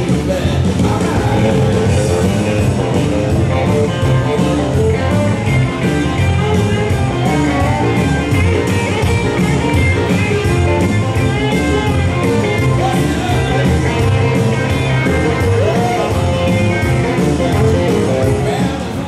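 Jive dance music with a singer and a steady beat, played loud over a ballroom sound system for the dancers, beginning to fade out at the very end.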